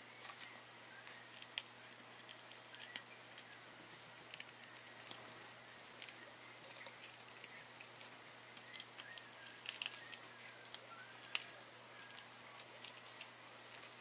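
Faint small clicks and ticks of a small screwdriver working the screws out of a unibody MacBook's aluminium bottom case, over a low steady hum.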